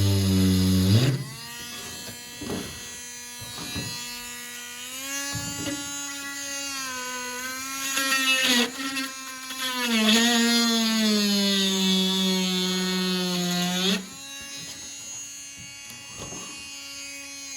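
Small handheld rotary tool running while it grinds old plastic pin hinges out of their slots, its motor whine sagging in pitch each time the bit bites and recovering as it eases off. It winds down near the end.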